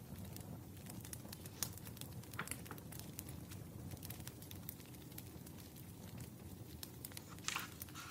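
Wood fire crackling: irregular sharp pops and ticks over a low steady rumble, with a louder, longer crackle about seven and a half seconds in.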